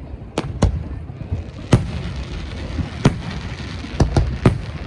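Fireworks bursting overhead: a series of sharp bangs at irregular intervals, about seven in all, two in quick succession about four seconds in, over a steady rumbling crackle.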